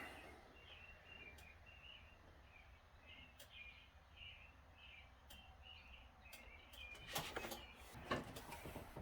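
Faint bird chirping, short chirps repeated about twice a second, with a few sharp knocks or clicks near the end.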